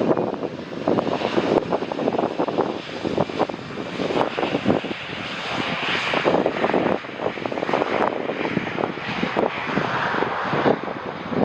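Jet airliner's engines passing close by as it comes in to land: a loud, rough noise with a steady crackle that swells around the middle.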